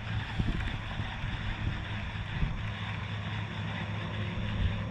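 A boat motor running steadily with a low, even hum, under a wash of wind and water noise.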